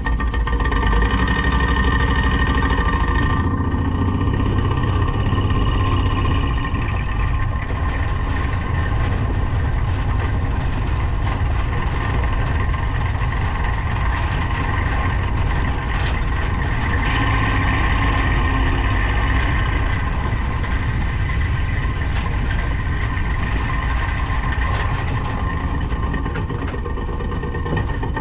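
Kawasaki Mule utility vehicle's engine running steadily, its sound changing about three seconds in and again around seventeen seconds.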